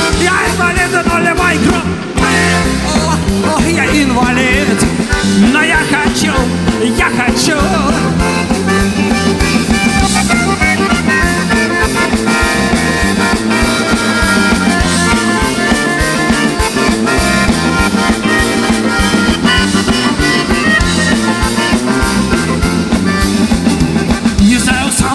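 Live rock band playing an instrumental passage with a steady beat: drums, bass guitar, electric guitar, mandolin and bayan (button accordion).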